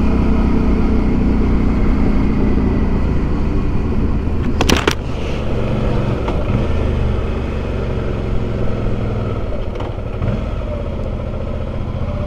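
Motorcycle engine running under way, with a steady rush of road and wind noise. A single short sharp click comes just under five seconds in.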